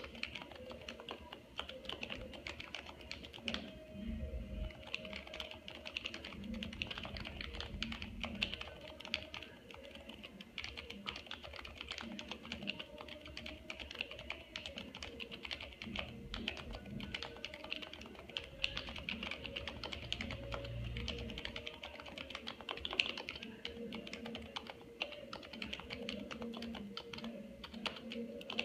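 Continuous fast touch-typing on a Happy Hacking Keyboard Professional 2 Type-S, its silenced Topre electrostatic capacitive keys giving an unbroken stream of soft, muted keystrokes.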